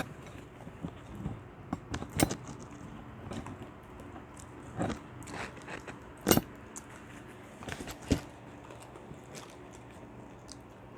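People eating during a mukbang: biting and chewing with scattered sharp clicks and taps of cutlery and food containers, the loudest about 2, 6 and 8 seconds in.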